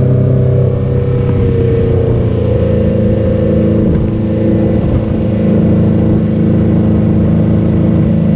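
Boat's outboard motor running at speed, loud and steady, with its note shifting upward about two seconds in.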